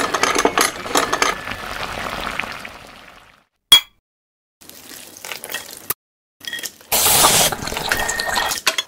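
Cooking sound effects for a pot of spicy ramen: liquid bubbling and hissing with many small clicks and clinks. It fades to silence for about a second with one sharp clink, a few faint clicks follow, and a loud hissing stretch returns near the end.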